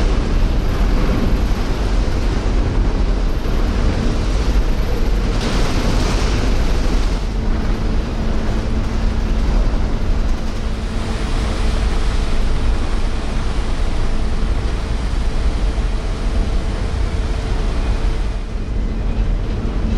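Blue Star Patmos ferry's engines and propellers churning the water while manoeuvring: a loud, steady rushing rumble with a low engine hum beneath it. The rumble changes character a few times.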